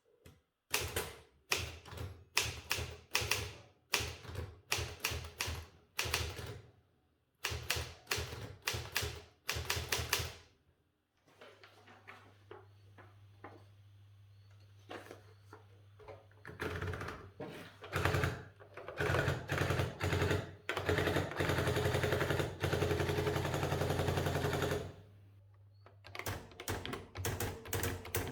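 Typewriter typebars striking in quick bursts of typing. About a third of the way in, a steady low hum starts beneath the keystrokes, the motor of an electric typewriter running. A long run of very rapid strokes comes near the end.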